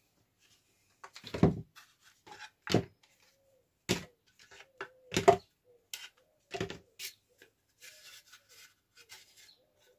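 Plastic spring clamps being squeezed open and pulled off a glued plywood cut-out and set down: a string of separate sharp plastic clacks and knocks, about one a second, with light handling rustle in between.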